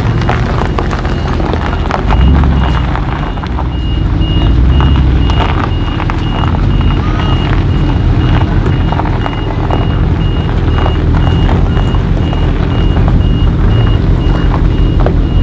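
Twin-turbo V8 of a 750 hp ABT-tuned Audi RS6 C7 on an iPE exhaust, running with a deep rumble and swelling in two short revs about two and four seconds in. A regular high beep repeats from about four seconds in.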